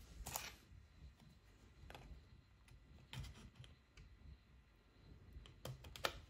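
Faint clicks and rustles of the plastic front cover of a Bambu Lab A1 extruder head being handled and fitted onto the head, with a few quicker clicks near the end.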